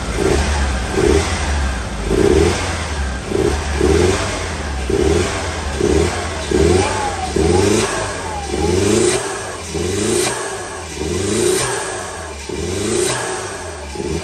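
Merkur XR4Ti's 2.3-litre turbocharged four-cylinder engine being revved in short repeated blips, about one a second. It has just had a new cap, rotor, wires and plugs and runs on all four cylinders, but the owner finds it still has a slight miss, which he suspects the injectors of causing.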